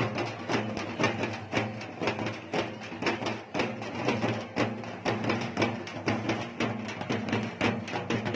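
Procession band music: quick, steady drum strikes over a held low tone.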